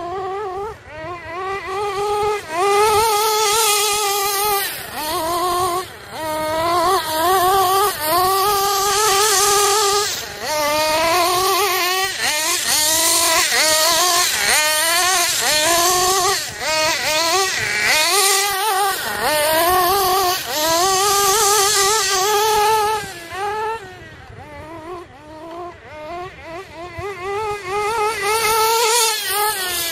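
GS Racing Storm Evo nitro RC buggy's 3.5 cc (.21) glow engine, running on 16% nitro fuel, revving up and down over and over as the car is driven hard, its pitch climbing with each burst of throttle and dropping off between. It turns quieter for a few seconds about three quarters of the way through, then comes up loud again near the end.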